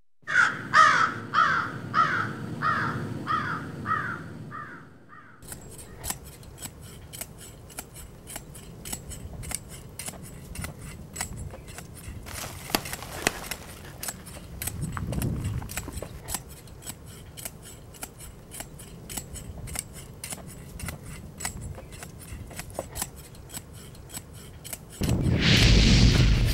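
Pogo stick bouncing on dirt, its spring and frame clicking in a steady rhythm. Before that, a run of about eight short, sharp calls; near the end, a loud rushing burst.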